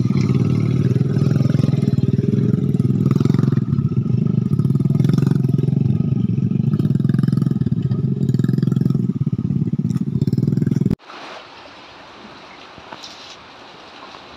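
An engine running loud and steady, which cuts off abruptly about eleven seconds in, leaving a quiet, even hiss.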